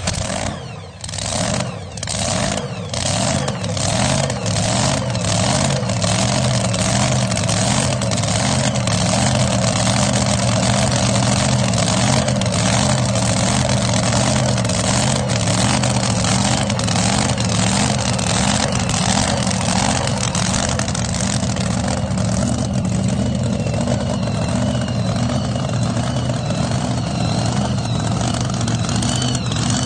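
A drag car's engine running loud and steady at idle, with sharp cracks repeating about every half second in the first several seconds.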